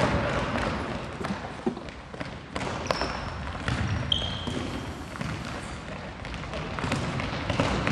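Indoor futsal play on a wooden gym floor: scattered thuds of the ball being kicked and bounced, two short high sneaker squeaks about three and four seconds in, and faint players' voices in the hall.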